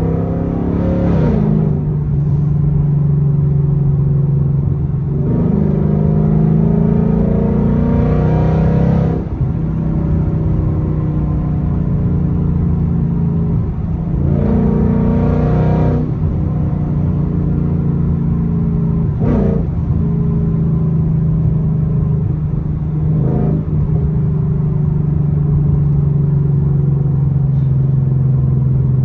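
Ford Mustang GT's V8 with a loud exhaust, heard from inside the cabin: it accelerates in pulls that rise in pitch and fall away at each automatic upshift, twice, then settles into a steady low drone while cruising, with a couple of brief sharper bursts.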